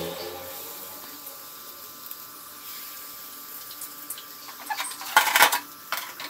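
A faint steady hiss, then a short burst of clatter and scraping about five seconds in as a metal spatula and a steel kadai are handled on the stove.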